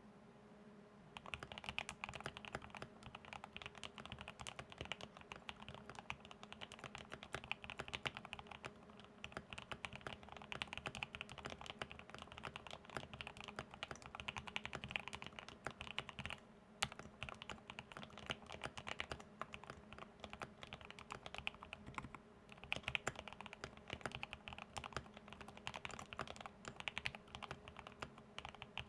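Fast, continuous typing on a KBD75 V3.1 mechanical keyboard with a polycarbonate plate, modded Banana Split linear switches and MT3 keycaps: a dense run of keystroke clacks that starts about a second in and pauses briefly twice.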